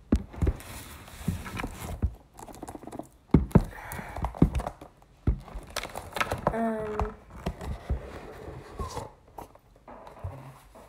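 Hands working the tight lid off an iPad Pro box: a run of knocks, taps and scraping cardboard and plastic, with short pauses between.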